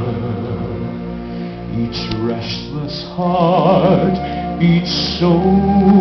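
Live concert band music with sustained held chords; about three seconds in, a male voice comes in singing with a wide vibrato over the band.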